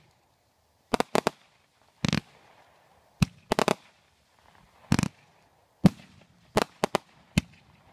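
Aerial fireworks shells bursting overhead: an irregular series of about a dozen sharp bangs, some coming in quick pairs and triplets, with short quiet gaps between them.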